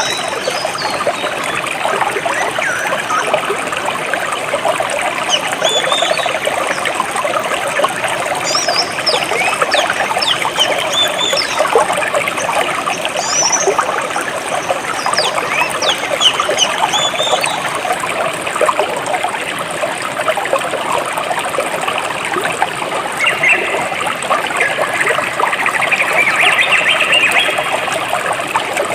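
Clear water trickling and splashing steadily over rocks in a small jungle stream, with short, high bird chirps scattered over it.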